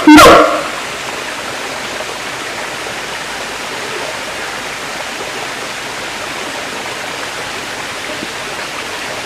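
A siamang's loud call cuts off about half a second in, followed by a steady, even rushing noise with no calls.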